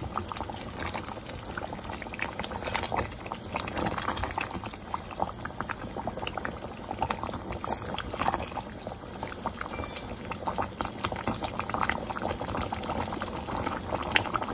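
Chicken rezala gravy bubbling at a rolling boil in a pot: a dense, irregular crackle and plop of bursting bubbles, with the liquid sloshing as a spatula stirs through it.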